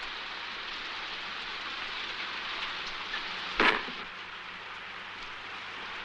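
Steady rain hissing, with one sharp knock about three and a half seconds in.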